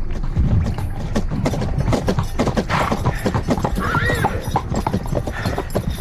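Hooves of several horses clip-clopping in a dense, irregular run of hoofbeats.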